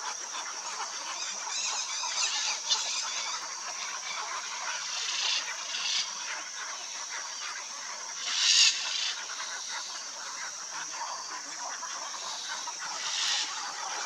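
Macaw squawks: a handful of short, harsh, honk-like calls, the loudest about eight and a half seconds in, over a steady high-pitched background hiss.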